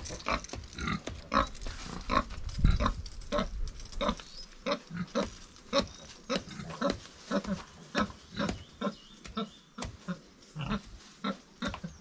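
Pig grunting: a rapid, uneven string of short grunts, roughly two a second.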